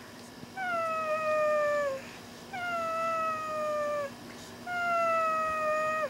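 Dog crying: three long, drawn-out whines, each about a second and a half and sliding slightly down in pitch, with short pauses between.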